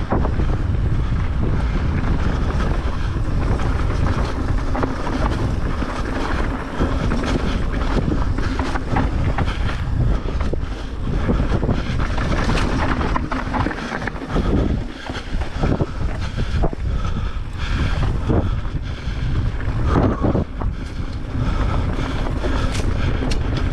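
Wind buffeting the action camera's microphone while a mountain bike rolls fast down a rough dirt trail, tyres crunching over loose stones. Frequent short clicks and knocks from the bike rattling over the bumps run through the wind.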